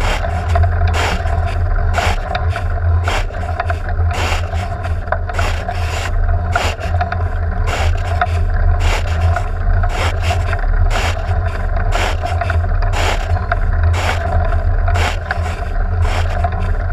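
Steady low hum of a car driving in rain, with a scraping stroke repeating about once or twice a second, like windshield wiper blades sweeping wet glass.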